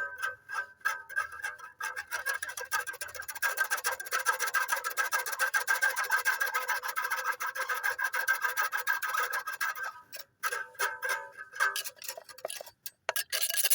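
A cowbell shaken rapidly, its clapper striking many times a second over a steady metallic ringing tone; the strikes thin out with short gaps in the last few seconds.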